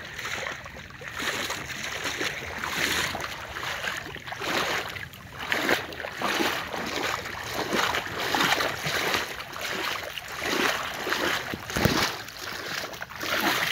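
Water splashing and sloshing in repeated surges as a person wades through it, stride after stride.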